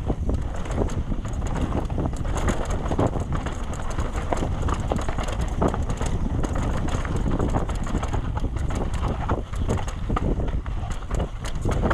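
Trek Session 9.9 downhill mountain bike ridden fast over a rooty trail: wind rumbling on the action camera's microphone, over a constant irregular clatter of knocks and rattles from tyres, chain and suspension hitting roots and rocks.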